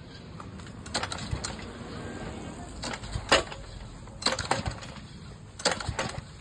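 Repeated clacks and knocks, coming in pairs about every second and a half, as the pressure washer's small gasoline engine is cranked and fails to catch. It is suspected of being flooded.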